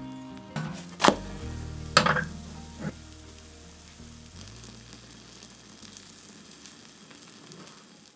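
Tomato and potato omelette frying in oil in a pan, sizzling, with two sharp knocks about one and two seconds in and a lighter one near three seconds. The sizzle then dies down gradually.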